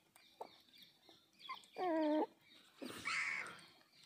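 Puppy whining: one wavering half-second whine about two seconds in, followed about a second later by a second, noisier cry.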